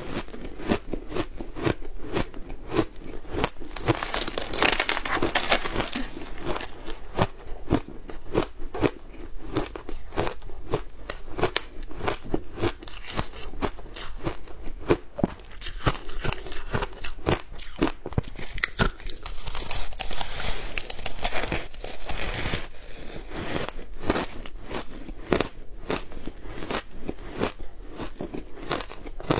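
Frozen shaved ice coated in matcha and milk powder being bitten and chewed: a dense, rapid crackle of crunches, louder in two stretches, about four seconds in and around twenty seconds.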